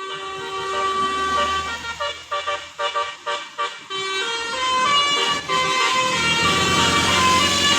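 Bus 'telolet basuri' multi-tone musical horn playing a tune of held notes, stepping in pitch. Near the middle it breaks into a run of short, stuttering toots, then the held notes return louder. A bus engine runs low underneath.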